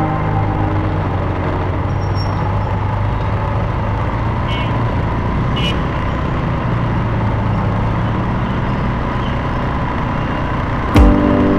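Motor scooter traffic heard from among the riders: a steady engine drone with road and wind noise. Two short high beeps about a second apart come near the middle.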